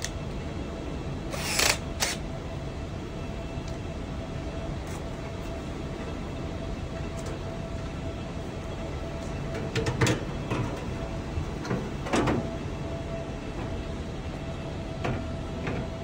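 Steady background rumble with a faint constant hum, broken by a few brief clicks and rustles of handling: two about two seconds in, a cluster around ten to twelve seconds, and one near the end.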